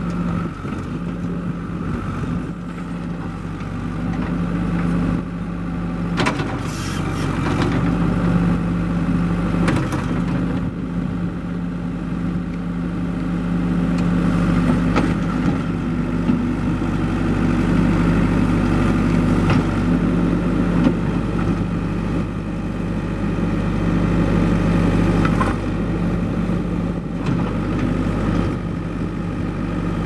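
New Holland 555E loader backhoe's four-cylinder diesel engine running steadily while the backhoe arm is worked, the engine note swelling and easing as the hydraulics take load. A few clunks from the boom and linkage come through now and then.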